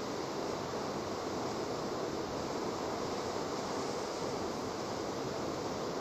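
Tall waterfall's water falling steadily into its plunge pool: an even, unbroken rushing.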